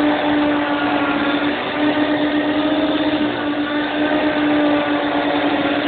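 Vacuum cleaner motor running steadily: a loud, even hum with a whooshing hiss, dipping briefly about one and a half seconds in.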